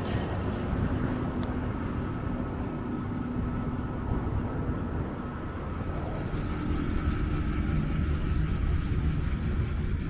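Steady low rumble of motor traffic, with a faint steady whine on top.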